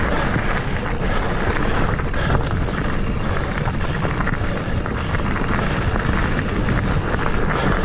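Mountain bike riding along a dirt singletrack: a steady rush of wind on the microphone and tyre noise, with small clicks and rattles from the bike over the rough ground.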